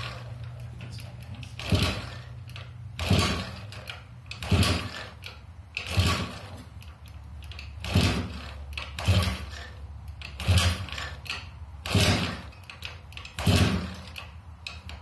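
A 1995 Honda Elite 50's two-stroke single being kick-started over and over, about ten kicks at roughly one every second and a half, each a sharp clack and thump as the engine turns over. It does not catch.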